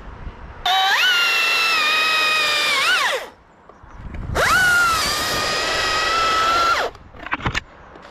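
Electric motor of a cordless power tool run twice, each time for about two and a half seconds: a high whine that rises as it spins up, holds steady, then falls away as the trigger is let go. A few short clicks follow near the end.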